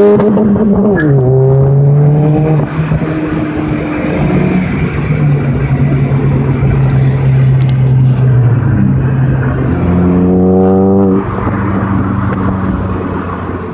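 Renault Clio 3 1.2 TCe turbocharged four-cylinder with a remap and a de-catted 55 mm stainless exhaust, heard from the moving car. The engine note finishes a rising rev climb and drops sharply as a gear is changed about a second in, pulls steadily for several seconds, then revs up again and drops with another gear change about eleven seconds in.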